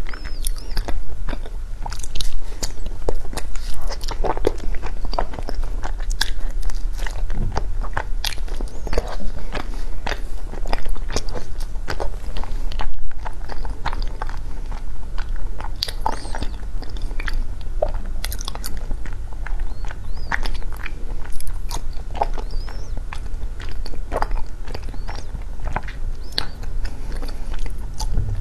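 Close-up crunching and chewing of frozen matcha ice, with dense, irregular sharp cracks as the ice breaks between the teeth.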